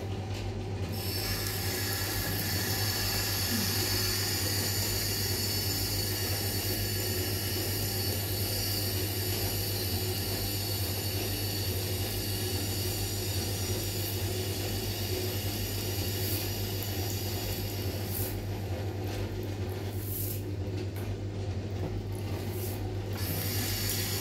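A steady machine hum with a constant low drone and an even hiss above it; the high hiss thins out for a few seconds near the end.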